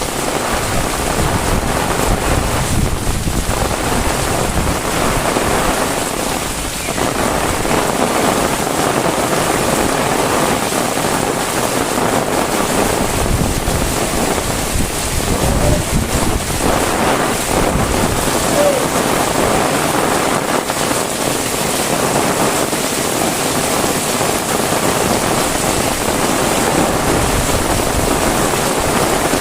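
Heavy rain falling steadily, with low, uneven rumbling of wind on the microphone.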